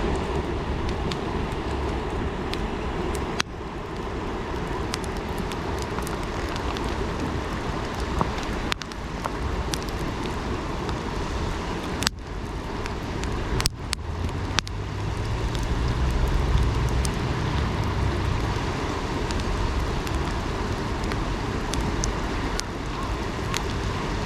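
Steady rush of a river, with scattered sharp pops and crackles from a wood campfire. A low rumble swells and fades in the latter half.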